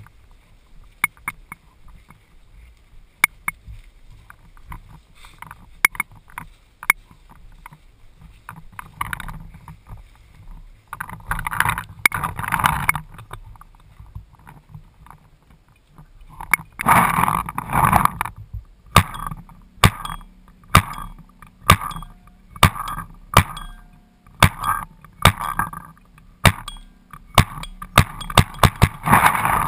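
Paintball markers firing: sharp pops scattered through, then coming one or two a second in the last ten seconds. Two noisy stretches of a second or two sit near the middle.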